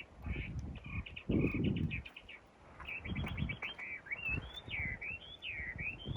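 Songbird chirping in quick runs of short notes, then singing sweeping up-and-down whistled notes over the last two seconds. Under the birdsong are irregular low rumbles and knocks, loudest between one and two seconds in.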